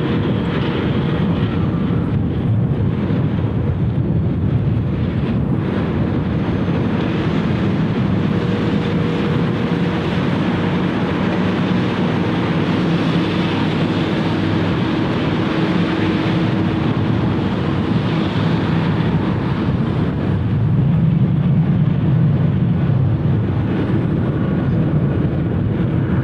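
Boeing 757-200's jet engines at taxi power: a steady rumble and hiss with a faint hum, swelling a little about 21 seconds in.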